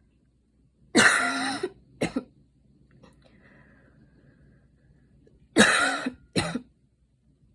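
A woman coughing after running: two bouts about four and a half seconds apart, each a long, voiced cough followed straight away by a shorter one.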